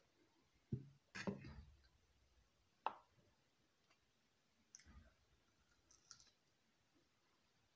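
Soft knocks and clicks of eating at a table: a glass set down, then pieces of nyama choma (roast meat) handled and bitten, with quiet spells in between.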